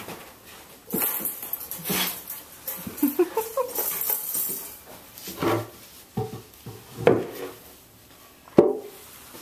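Four-week-old Samoyed puppies whining and crying in short rising squeals, among scattered knocks and clattering, with one sharp knock near the end.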